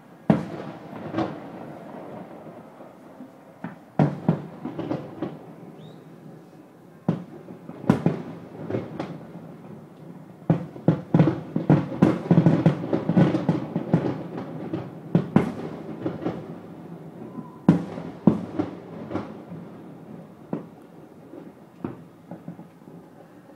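Distant fireworks shells bursting in booms and bangs with a low rumble. Single bursts come a few seconds apart, then a dense rapid volley of bangs about halfway through, then another cluster and a few scattered booms.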